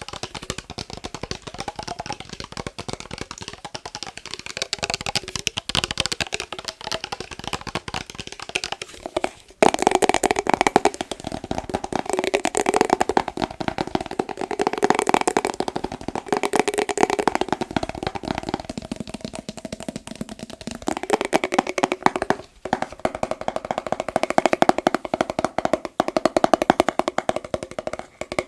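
Fast, dense tapping on a glass mason jar. About ten seconds in it turns louder and the jar's ringing pitch comes through, with brief pauses there and again about twenty-two seconds in.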